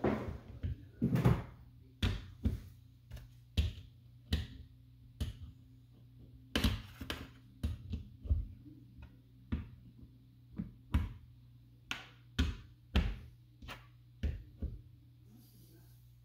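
Stove control knobs being pushed back onto their shafts on a metal cooktop control strip: a string of about twenty irregular clicks and taps that stops shortly before the end, over a faint steady hum.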